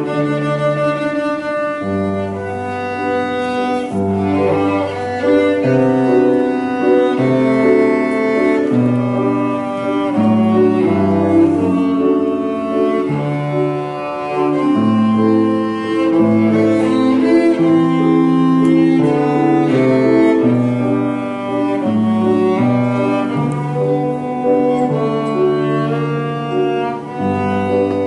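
Cello playing a scherzo with grand piano accompaniment: a continuous run of bowed notes, each held for about half a second to two seconds, over piano chords.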